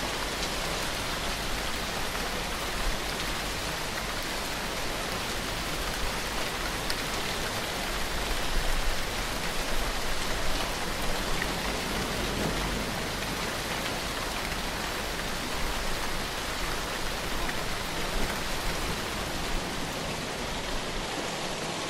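Steady, intense rain falling, an even, unbroken hiss with scattered louder drop spatters.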